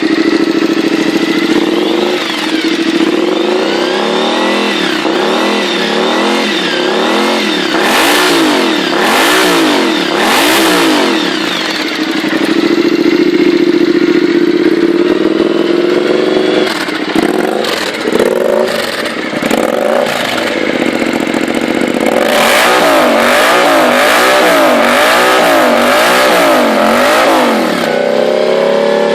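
Triumph Scrambler's parallel-twin engine through a British Customs Shotgun exhaust, revved in repeated quick throttle blips that rise and fall. It settles back to a steady idle between two runs of blips. The exhaust is loud.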